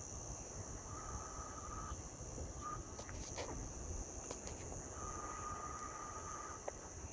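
Outdoor bush ambience: a steady, high-pitched insect drone over a low rumble of wind on the microphone. Twice a flat mid-pitched tone is held for a second or more, and a few sharp clicks come near the middle.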